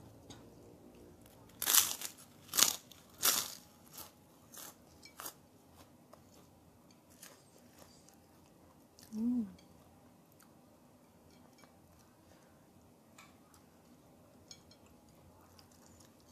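Close-miked eating of goat satay and rice by hand: three sharp crunchy clicks about two seconds in, then a few fainter ticks, and a brief hum of the voice near the middle.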